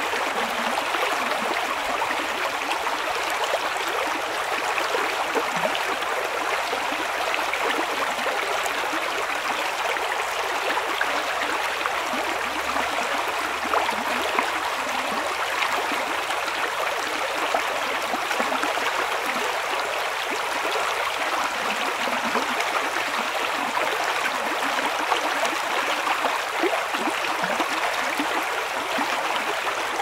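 Shallow stream rushing in small rapids over rock ledges and stones: a steady, even rush of water.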